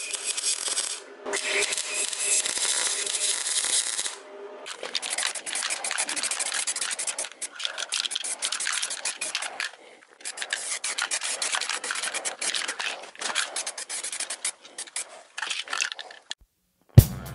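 MIG (wire-feed) welding arc crackling and spitting while welding a steel exhaust pipe. It runs in stretches, with short breaks about a second in and again around four seconds in. Music comes in at the very end.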